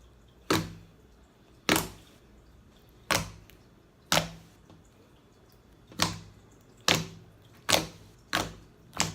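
Big batch of mixed slime making loud clicking pops, about nine sharp pops spaced irregularly, half a second to two seconds apart.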